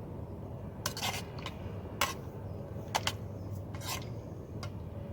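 Metal utensil scraping and clinking in a camping cook pot: about six short strokes roughly a second apart, over a steady low background rumble.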